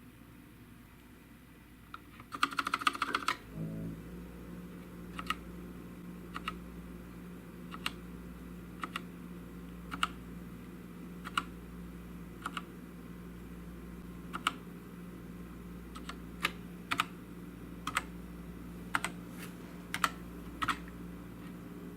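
Keystrokes on a GMMK TKL hot-swappable mechanical keyboard: a quick burst of clicks about two seconds in, then single key presses roughly once a second, unevenly spaced. A steady low hum comes in about four seconds in.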